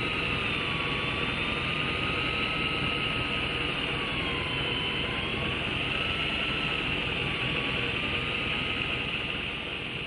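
Electric deep-drop fishing reel motor winding in line, a steady whine whose pitch wavers slowly up and down with the load of a hooked fish.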